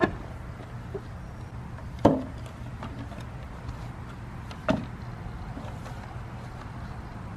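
Three sharp knocks or clunks of parts and tools being handled while a dirt bike is taken apart, the second one, about two seconds in, the loudest. A few faint ticks and a steady low hum lie underneath.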